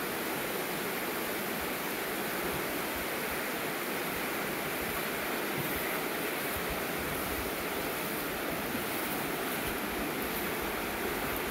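Steady rush of the Virgin River flowing shallow over stones in a sandstone slot canyon.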